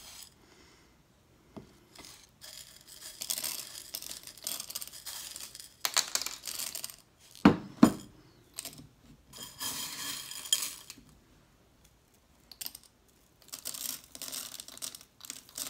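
Small steel eyelets clinking and jingling in repeated handfuls as they are picked from a bowl and dropped into the first stage of a MAC 9mm suppressor tube. Two sharp knocks about halfway through are the loudest sounds.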